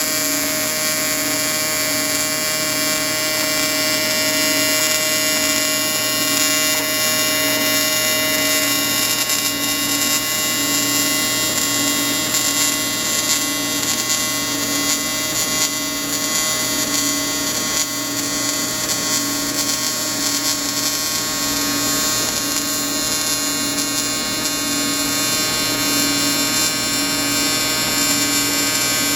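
Welding arc buzzing steadily, typical of TIG welding an intake part, with a lower note pulsing about once a second. A higher steady tone drops out about a third of the way in.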